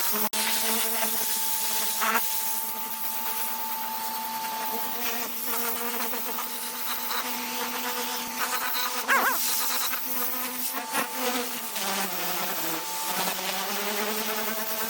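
Pressure washer running: a steady motor hum under the hiss of the water spray, the pitch sagging briefly about twelve seconds in.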